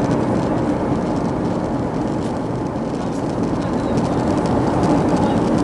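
Steady in-flight cabin noise of an Airbus A330 airliner: a constant rumble of jet engines and rushing air.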